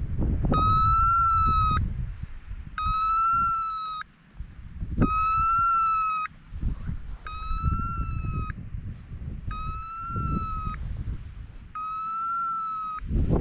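A hunting dog's beeper collar sounding a steady electronic beep, each about a second long, six times at about two-second intervals. This is the point-mode signal that the pointer has stopped and is holding point. Wind rumbles on the microphone underneath.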